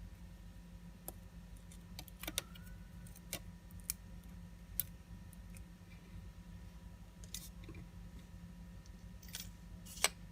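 Small sharp clicks and taps at irregular intervals, typical of tools and metal watch parts being handled on a bench, over a steady low hum.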